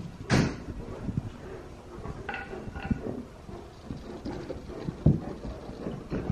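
Several dogs moving on a tile floor, with paws scuffing and knocking and a loud rustle about a third of a second in. Two short high whines come a little past two seconds in and again near three seconds, a dog eager to be let out.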